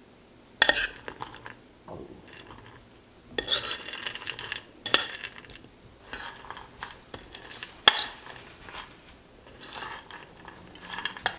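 A metal spoon stirring diced dried fruit and spices on a ceramic plate: scraping and rattling passages with several sharp clinks of spoon on plate, the loudest about a second in, near five seconds and near eight seconds.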